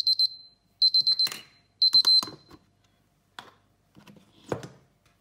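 Taylor digital kitchen timer sounding its time's-up alarm at 00:00: three quick bursts of high beeps about a second apart, then it stops. A few light knocks follow.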